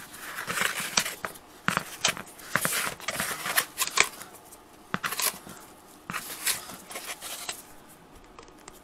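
Hands rubbing and pulling at a freshly cut fabric-covered plastic engine-bay cover on cardboard: irregular scraping and rustling with small clicks. It is busy for about the first five seconds, then sparser and quieter.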